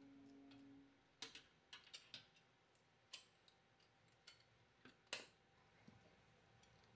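A held note of soft background music dies away about a second in, then a scattering of light clicks and clacks, the loudest about five seconds in, as a metal stovetop hot sandwich maker is closed over a sandwich and its steel handles are clipped together.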